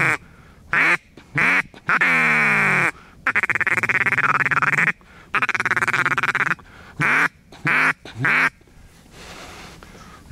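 Mallard-style duck calling to incoming ducks: a run of loud quacks, some long and falling in pitch, a long buzzy call in the middle, then three short quacks near the end.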